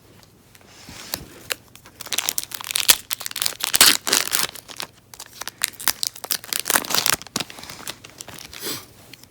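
Foil Pokémon booster pack wrapper crinkling as it is handled and torn open, in two busy spells with a short lull about five seconds in.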